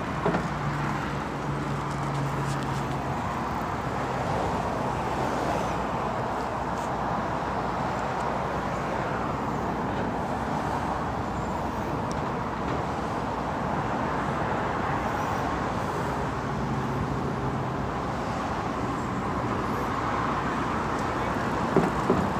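Steady distant vehicle noise, a continuous rumbling hiss with a faint low hum that comes and goes, and a couple of short knocks near the end.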